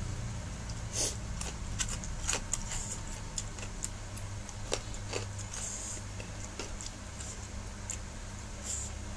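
Eating sounds: a spoon and fork clicking and scraping on a plate in short scattered taps, with chewing and soft mouth noises, over a steady low hum.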